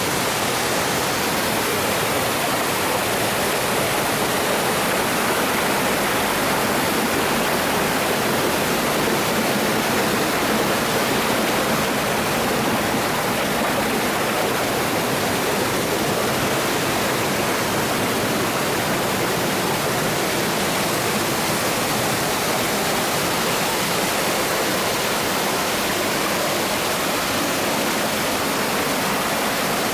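Steady rushing of Benten Falls, a waterfall pouring into its plunge pool.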